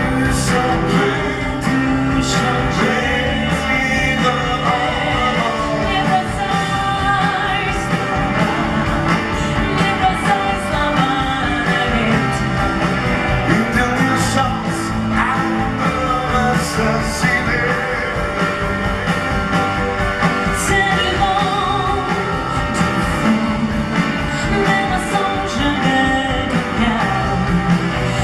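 A pop duet sung live over a full band, the lead voice with vibrato.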